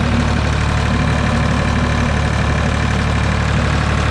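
Ford 2810 tractor's three-cylinder engine running steadily under load while it pushes a front-mounted snowplow through snow.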